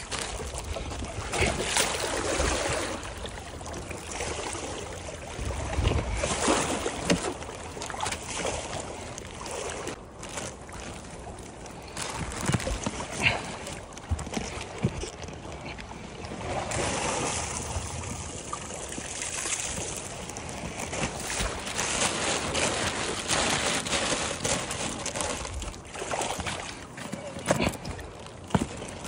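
River water rushing and splashing against a homemade kayak skinned in tarpaulin as it is paddled downstream. There are irregular swells and scattered short knocks.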